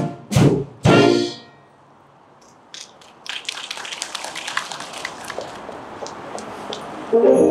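A wind band ends a piece with two short, loud full-band chords about half a second apart that ring off into a brief lull. About three seconds in, applause starts and carries on until, just before the end, the band starts the next piece with sleigh bells and brass.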